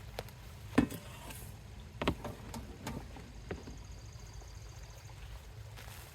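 A few irregular knocks and clunks, the loudest about a second in and another about two seconds in, over a steady low hum.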